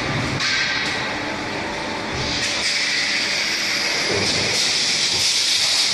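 Running evaporator core assembling machine and factory-floor machinery: a steady hiss over a low rumble, swelling about two seconds in and again near the end.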